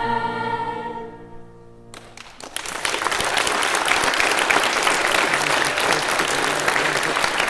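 A children's choir holds a final sung chord that fades away, then audience applause breaks out about two seconds in and carries on steadily.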